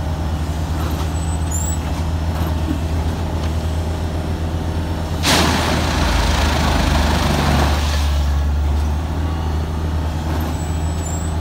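Multiple tie tamper's engine running with a steady low drone. About five seconds in, a loud hiss of released air starts suddenly and dies away over about two and a half seconds.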